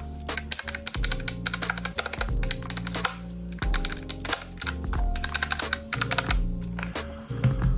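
Keys being typed on a Redragon Fizz K617 mechanical keyboard in quick runs of clicks, over background music with a steady bass line.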